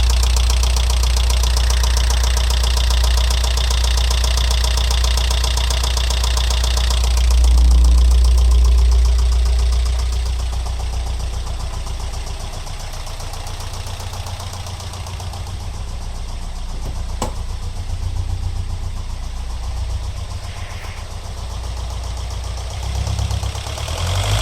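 Alfa Romeo 166 2.0 Twin Spark four-cylinder engine idling with a fast, rhythmic ticking rattle. The knock appeared after a head gasket replacement and is traced to the right side of the engine around cylinders 3 and 4, with the tappet buckets ruled out. The sound is louder for the first several seconds and quieter from about ten seconds in.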